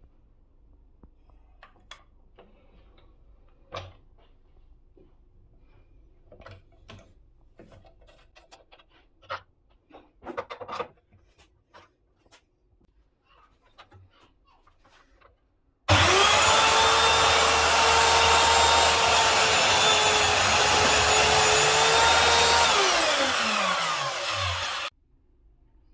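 Scattered light clicks and knocks, then the Parkside miter saw's motor running at full speed with a steady high whine, its pitch falling as it winds down after about seven seconds. The motor run is by far the loudest sound.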